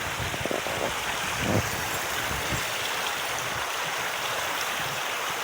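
Mountain stream running steadily over rocks, a continuous rush of water, with a short low bump about one and a half seconds in.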